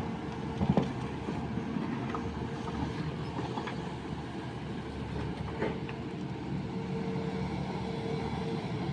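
Sany excavator's diesel engine running steadily under working load, with a steady whine over it. A knock sounds about a second in and a fainter one around five and a half seconds.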